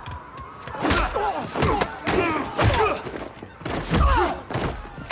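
Movie fight sound effects: heavy punch and kick impacts, three big thuds about a second apart, among smaller hits, with grunts of effort.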